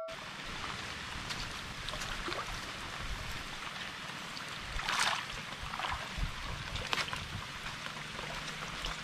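Rustling and swishing of tall grass as people walk through it, with footsteps, over gusty wind noise on the microphone; a few louder brushes of grass come about five to seven seconds in.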